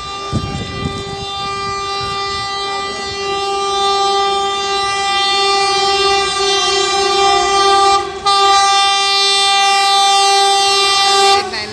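A WDM3A diesel locomotive's air horn sounding one long blast, broken off briefly about eight seconds in and then held again until just before the end.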